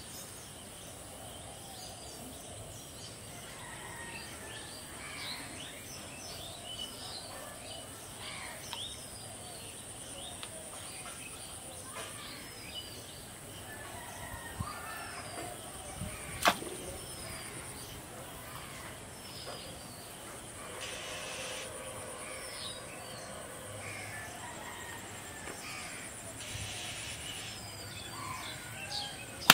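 Countryside ambience: many short bird chirps and calls throughout over a steady high insect drone. One sharp click about halfway through.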